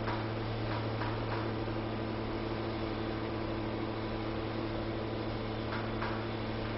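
Steady low machine hum with a few faint clicks, including one just after the start and a pair about a second in.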